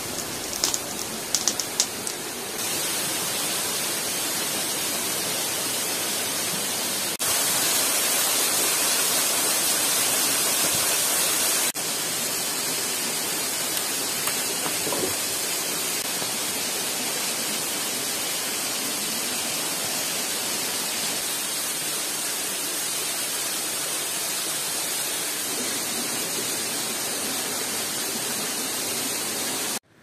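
Waterfall rushing: a steady hiss of falling water that steps louder for several seconds just before the middle and drops back. A few sharp ticks at the start.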